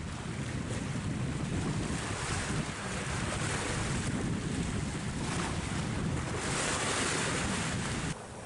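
Water rushing and splashing along the wooden hull of a ketch under sail, with wind buffeting the microphone. The hiss of the bow wave swells and eases several times, then drops off suddenly near the end.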